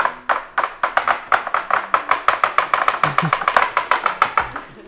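A knife chopping through a rhubarb crumble cake and striking the metal baking tray underneath, a run of sharp taps that quickens from about three a second to six or seven a second.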